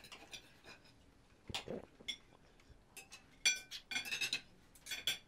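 Cutlery clinking on dinner plates and glasses during a meal: a few scattered light clinks, some ringing briefly, with a cluster of them between about three and a half and five seconds in.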